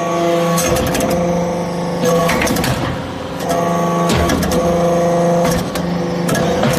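Hydraulic metal-chips briquetting press running. Its pump and motor give a steady hum that dips and strains about every two seconds as the ram presses, with a cluster of clanks at each stroke.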